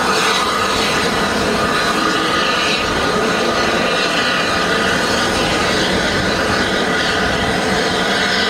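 Steam locomotive at a station platform, a steady hiss and rumble with faint steady tones and no distinct exhaust beats.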